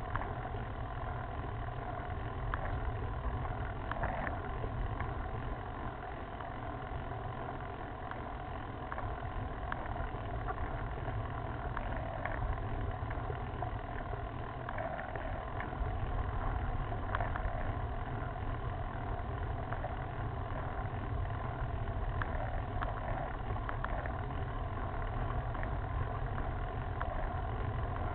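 Steady rumble and hiss from a camera mounted on a road bicycle climbing slowly on rough tarmac: road vibration through the mount and air over the microphone, with a few faint ticks now and then.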